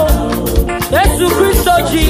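Live gospel band music: several voices singing together with gliding notes, over a steady drum beat and bass.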